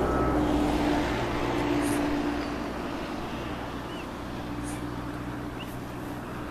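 Steady vehicle engine and road noise with a low hum, fading gradually.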